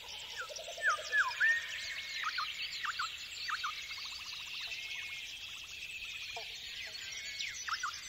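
Many birds singing together in a dense dawn chorus: overlapping chirps, short falling whistles and rapid trills, with a few louder falling calls about a second in. It is the birdsong of an ambient background music track.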